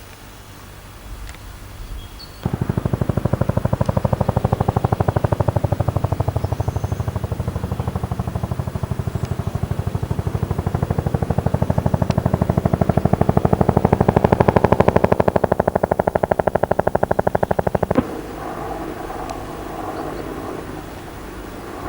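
Construction machinery pounding rapidly and evenly, many blows a second. It starts suddenly a couple of seconds in and stops sharply near the end, with a steadier engine sound left under it. A few bird chirps come at the very start.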